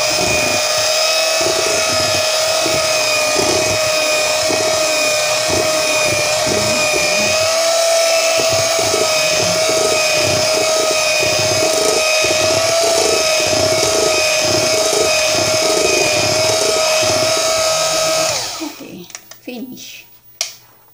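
Electric hand mixer running steadily with a high whine, its beaters churning batter in a bowl; it switches off abruptly about 18 seconds in, followed by a few sharp clicks and knocks.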